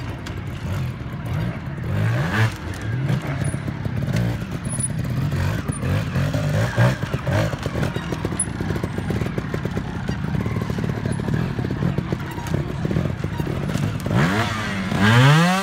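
Trials motorcycle engine revved in short blips as the bike picks over rocks, with a long rising rev near the end.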